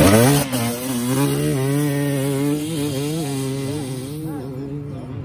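Enduro motorcycle engine running at fairly steady revs with small wavers of throttle, gradually fading as the bike rides away.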